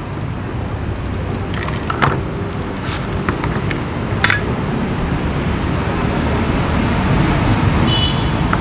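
Steady street traffic noise, with a few sharp metallic clinks of a spoon and scissors against a plate as a salt-crusted fish is opened, about two to four seconds in.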